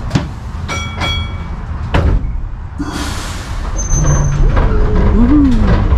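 Vintage electric tram: a few knocks, then a short hiss of compressed air from its air brakes about three seconds in, followed by a brief high squeal and its running rumble growing louder as it gets under way.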